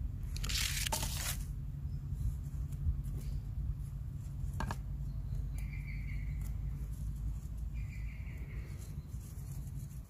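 Handling noise of thin braided bankline cord wound around the notches of a stainless-steel survival card: a rustling, rubbing burst at the start and a single sharp click near the middle.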